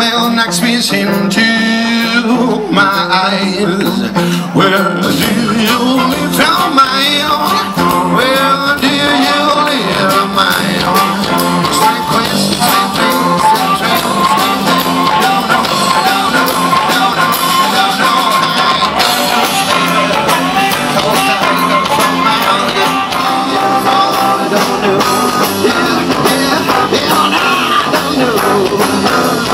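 Live rock band playing a song at full volume, with bass guitar, drum kit and electric guitar.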